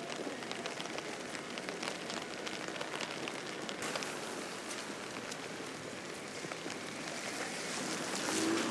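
Steady rain falling, with a dense scatter of small, sharp drop hits over an even hiss.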